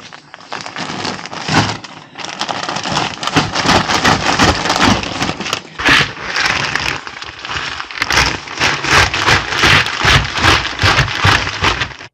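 Plastic sack of potting soil rustling and crackling as a planter is filled with soil, a dense run of crinkles and crackles with no pause.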